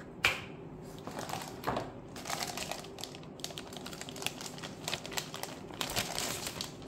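A clear plastic bag crinkling and rustling in irregular bursts as a small router sealed inside it is handled. A single sharp knock about a quarter second in.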